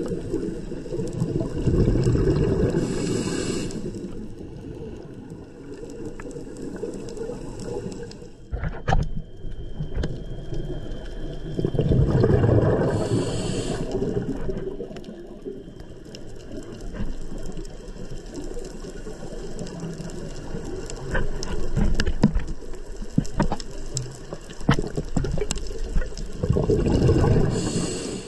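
Scuba diver breathing through a regulator underwater: each breath is a loud gurgling rush of exhaled bubbles with a short hiss from the regulator, roughly every 10 to 12 seconds, with scattered faint clicks in between.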